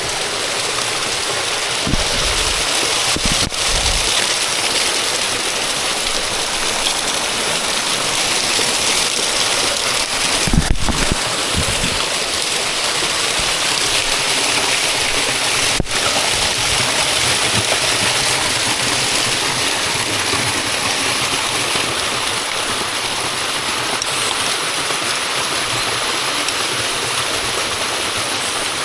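Waterfall water rushing in a steady, loud noise, with a few low thumps, the strongest about ten seconds in.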